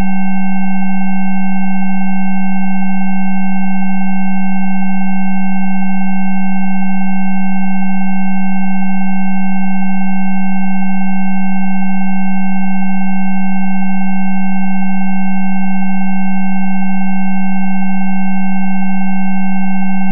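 Electronically generated Rife frequency tones: a loud, low, pure tone with several quieter higher tones above it, all held perfectly steady without change.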